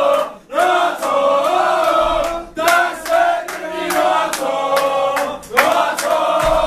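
A group of young men chanting loudly together in phrases with short breaks between them, keeping time with hand claps: a team's celebration chant.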